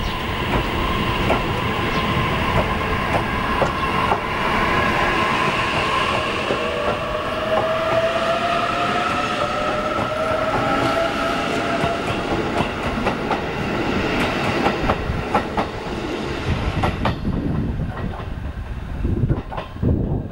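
A JR East E531 series electric train pulling out and accelerating past, with a rising whine from its motors and its wheels clicking over rail joints. The sound thins out near the end as the last cars pass.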